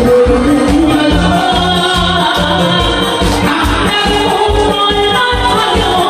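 A woman singing a Korean trot song live into a microphone over amplified accompaniment with a steady bass beat.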